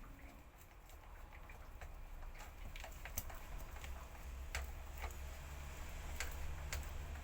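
Irregular light clicks and taps of parts being handled during repair work, over a low steady hum. The clicks come more often in the second half.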